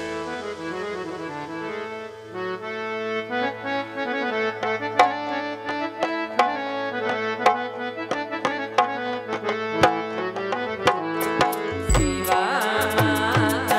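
Traditional Gujarati folk music: a harmonium plays a held melody with hand-drum strokes over it. Near the end a singing voice comes in.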